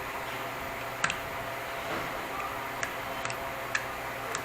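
A handful of short, sharp light clicks and taps, about five spread irregularly over four seconds, from the small plastic parts of a tape measure being handled, over a steady background hum.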